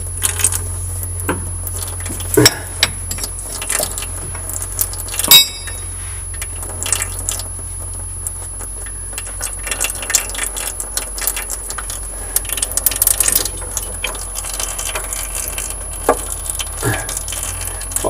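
Scattered metallic clinks and taps of tools and fasteners on a tractor's hydraulic cylinder mounting as it is being unbolted, with one sharp ringing metal clink about five seconds in. A steady low hum and a faint high whine run underneath.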